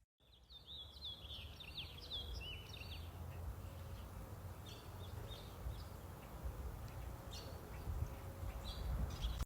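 Small birds chirping, a quick run of calls over the first few seconds and then scattered single chirps, over a steady low rumble of outdoor background noise.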